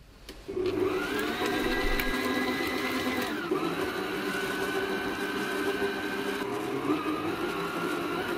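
Electric stand mixer starting up about half a second in and running with a steady motor whine as its flat beater mixes quark and eggs. The whine's pitch drops a little past three seconds, then shifts again near seven seconds.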